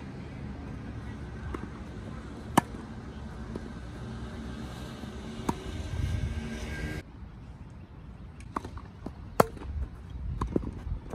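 Tennis balls struck back and forth in a rally on a grass court: sharp racquet hits every few seconds, the loudest about two and a half seconds in and near the end, with fainter hits from the far end of the court between them. A steady background hum runs under the first part and cuts off suddenly about seven seconds in.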